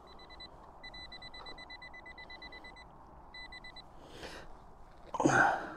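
Nokta AccuPoint pinpointer beeping rapidly at a high pitch, in three runs with short gaps, signalling a shallow target in the dug hole. Near the end comes a short loud scrape and thump.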